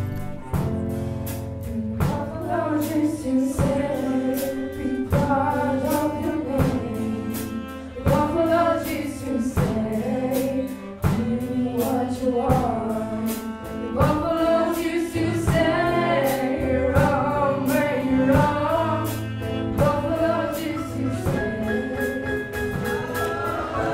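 Live band playing a song: a voice singing over a steady drum-kit beat, with guitars, keyboard and cello.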